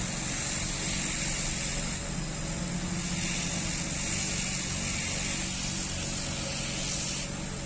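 Steady mechanical hum with a high hiss over it; the hiss cuts off suddenly near the end.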